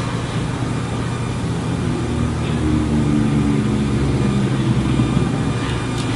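A steady low mechanical hum with an engine-like drone, growing a little louder and fuller about two seconds in.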